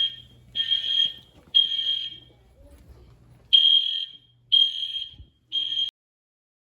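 EST fire alarm horns sounding the temporal-three evacuation signal: a high, steady-pitched beep in groups of three half-second pulses about a second apart, with a pause between groups. The last beep cuts off abruptly near the end.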